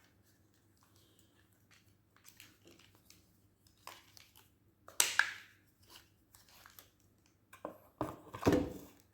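Tripod and camera being handled: scattered small clicks and rubbing of plastic parts, a louder rustling scrape about halfway through and a few knocks near the end.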